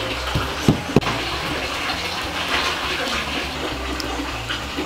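A steady rushing noise, with three sharp knocks in the first second.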